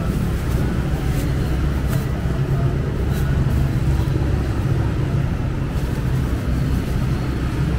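Steady rumble of road traffic passing close by, with a few faint clicks.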